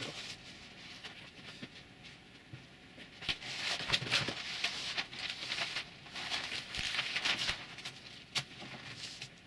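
Sheets of vinyl and paper backing rustling and crinkling as they are handled, lifted and smoothed down on a board, with the busiest rustling from about three seconds in until near the end.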